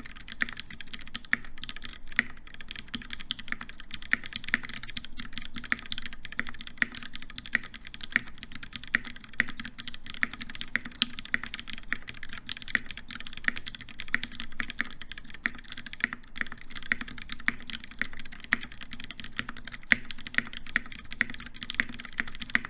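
Fast, continuous typing on a custom mechanical keyboard with lubed Hyperglide MX Black linear switches, a brass plate and GMK keycaps: a dense run of key strokes with a few louder ones here and there.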